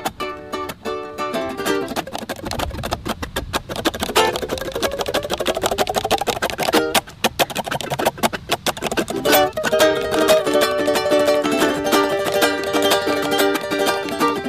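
Background music played on plucked strings, with a steady rhythmic pattern of notes.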